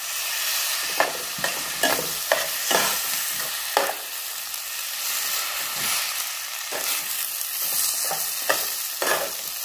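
Spiced mashed-potato filling sizzling in a hot pan while a metal spatula stirs and scrapes it, with irregular sharp knocks of the spatula against the pan about once or twice a second over a steady sizzle.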